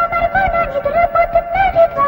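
Indian film-song music played for a dance: a flute melody with quick ornamented notes over a steady percussion beat.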